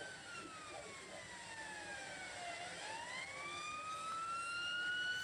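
Police car siren in wail mode: one slow cycle that falls in pitch for about two and a half seconds, then rises again.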